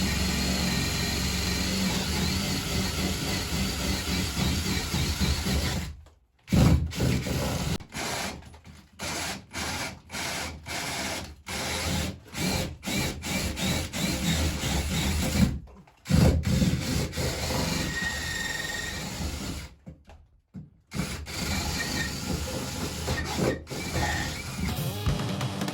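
Power drill boring holes, running steadily for several seconds, then in short stop-start bursts with brief silences between, then steady again with one short pause.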